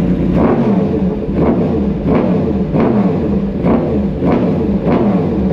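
Electronic background music with a steady beat: a repeating falling bass sweep about every three-quarters of a second.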